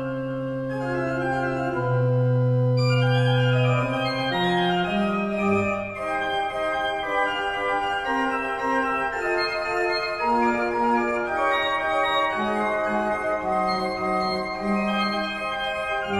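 Organ playing a piece: long held chords over a sustained bass for the first few seconds, then a moving melody over changing lower notes.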